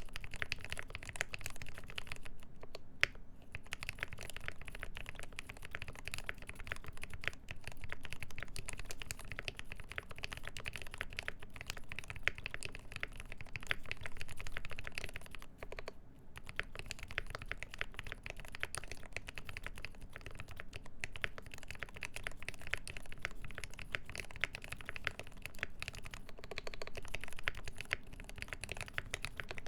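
Steady typing on a Mode 80 Founders' Edition mechanical keyboard with a full brass plate, lubed ZealPC Tealios linear switches with milky Gateron top housings, and GMK keycaps. The keystrokes come as a dense, uneven patter, with brief pauses about three seconds in and again about halfway through.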